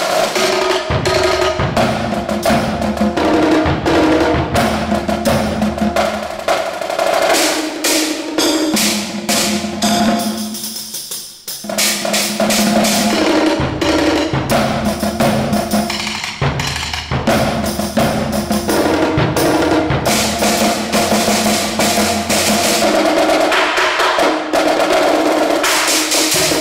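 Percussion quartet playing a piece on drums and hand percussion: a dense run of strokes over ringing pitched drum tones. The playing thins out briefly about eleven seconds in, then resumes just as dense.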